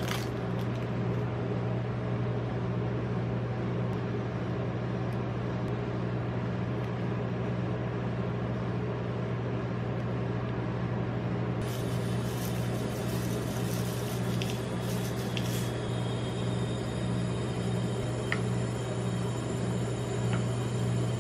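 Steady low hum of the rolled-ice-cream cold plate's refrigeration compressor. A few light crackles and clicks of handling come a little past halfway.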